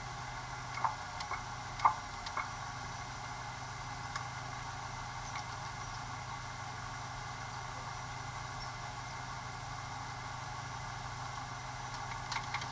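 Off-road vehicle's engine idling steadily, heard from inside the cab, with a few sharp clicks and knocks in the first couple of seconds.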